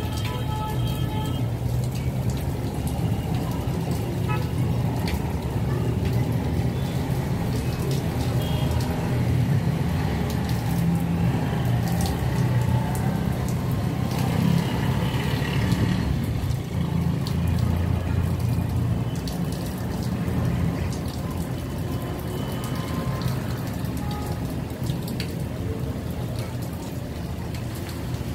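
Steady rain falling, with a deep, continuous low rumble under it.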